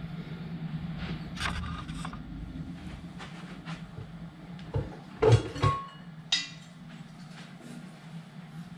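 Clicks, knocks and rubbing from a KitchenAid stand mixer's plastic and metal housing being handled as its head cover is lifted off. The loudest knocks come a little past halfway, over a steady low hum.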